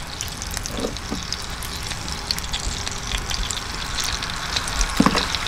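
Thin-sliced pork belly sizzling on a hot black griddle: a steady hiss with scattered small crackles.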